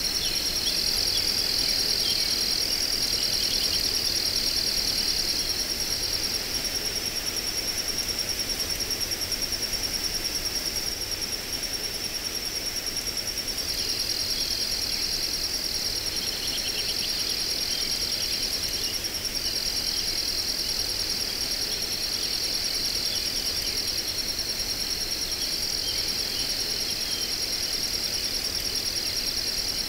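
Steady high-pitched chorus of crickets trilling together, with one layer of the chorus dropping out for a couple of seconds near the middle and a few faint short chirps lower down.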